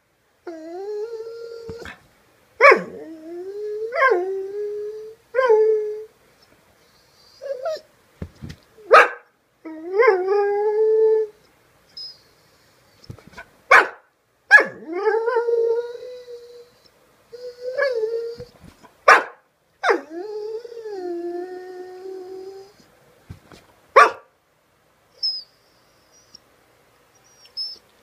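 A dog 'singing' out of mild annoyance: a series of drawn-out, wavering howl-whines, each one to two seconds long and gliding up or down in pitch, broken by short sharp barks that are the loudest sounds.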